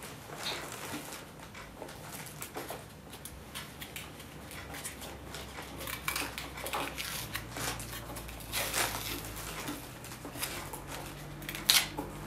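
Scissors cutting into a cardboard box, with irregular snips, crackles and rustling of the card, and one sharper click near the end.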